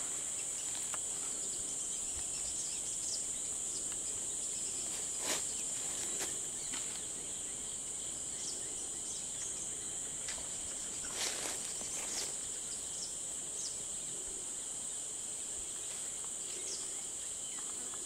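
A steady, high-pitched insect drone, with a few short faint clicks scattered through it.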